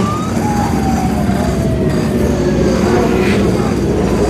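Many motorcycle engines running together as a large parade of motorbikes rides past, a steady, loud rumble. One drawn-out tone slides slowly down in pitch over the first few seconds.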